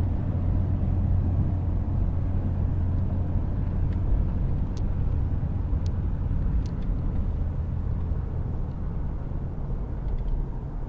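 A car driving along a road, a steady low engine and road rumble, with a few faint clicks about halfway through.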